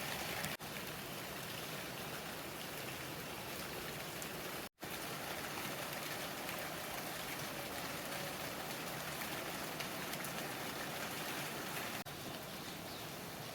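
Heavy rain falling steadily, an even hiss of drops, broken by a brief dropout about five seconds in.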